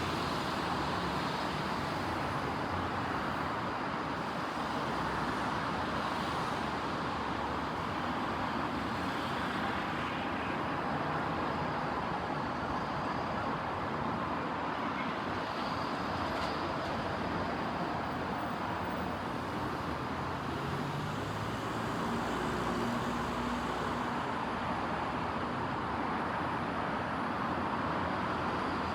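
Steady road traffic noise from cars passing on the street.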